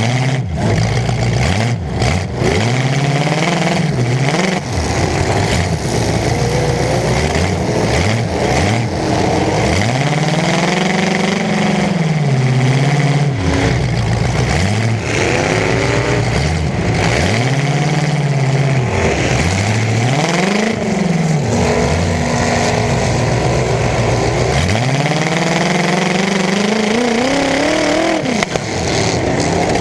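Demolition derby car's engine revving hard again and again, its pitch climbing and falling about six times. Sharp bangs of collisions a few times near the start and once about halfway through.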